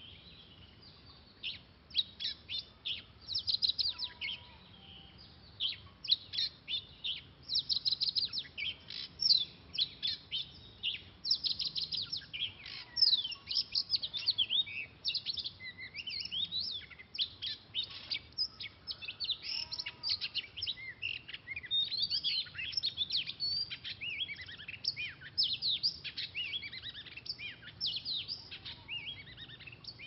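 Oriental magpie-robin singing: a rapid, varied run of short whistles and chirps that starts about a second and a half in and goes on with only brief pauses.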